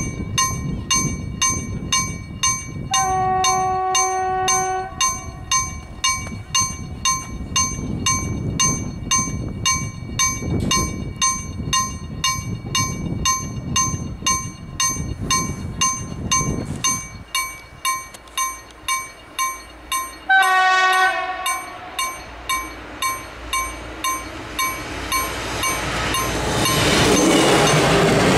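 KLD-4013 slow-striking level-crossing bell ringing steadily, about two strikes a second; the crossing has two such bells and one of them is faulty. A railbus horn sounds for about two seconds early on and again briefly about twenty seconds in, and the SA133 railbus's running noise on the rails rises near the end as it reaches the crossing.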